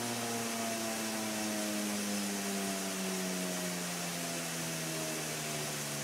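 Federal Signal 2001-DC outdoor warning siren sounding its Attack signal, one wailing tone sliding slowly and steadily down in pitch.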